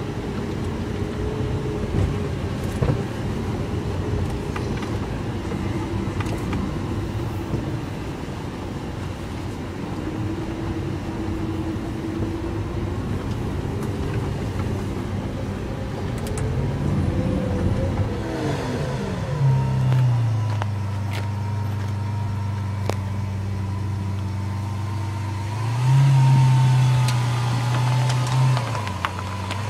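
Lamborghini Aventador's V12 engine running, its pitch rising and falling past the middle and then settling into a steady idle, blipped up twice near the end.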